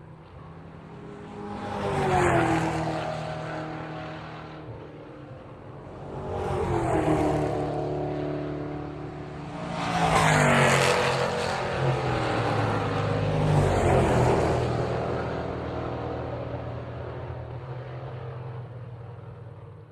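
Race cars passing by one after another, each engine note falling in pitch as it goes past. Four passes, the loudest about ten seconds in, over a steady engine hum that fades away at the end.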